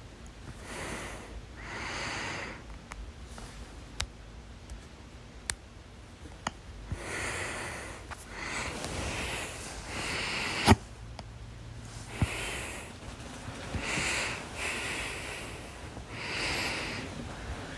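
A person with hiccups breathing heavily in and out through the nose in repeated breathy bursts. A single sharp hiccup comes about ten and a half seconds in, with a few fainter clicks before and after it.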